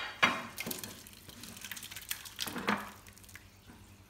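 Thick vegetable soup pouring and splashing from a cooking pot into a glass baking dish, with a few sharp knocks and clinks in the first three seconds; the pouring dies down near the end.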